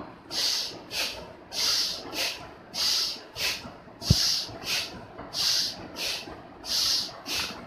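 Bhastrika pranayama (bellows breath): forceful, rhythmic breathing in and out through the nose at a quickened pace, hissing, with about one in-and-out pair every second and a bit, each a stronger breath followed by a weaker one. A single short knock about four seconds in.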